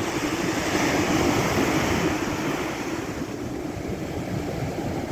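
Heavy ocean surf: waves breaking and white water washing in over the shallows. It is a little louder in the first couple of seconds and eases off slightly after about three.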